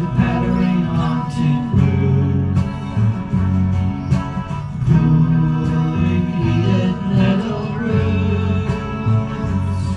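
Background music: a country-style song with acoustic guitar and a steady bass line, in an instrumental stretch between sung lines.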